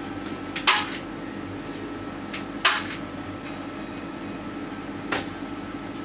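Three short scraping strokes of painting on a stretched canvas, about two seconds apart; the first two are the loudest.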